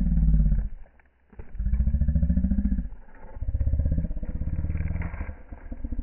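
Koala bellowing: deep, pulsing, snore-like grunts in bouts of one to two seconds, with a short break about a second in.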